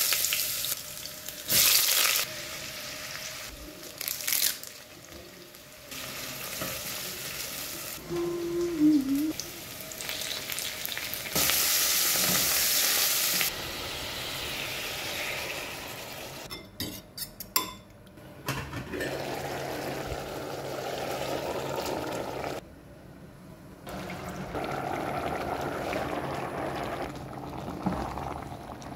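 Short cut-together stretches of cooking: chopped aromatics sizzling and frying in hot oil in a steel pot, with stirring and a few sharp clinks of a utensil against the pot. A louder hiss runs for about two seconds midway through.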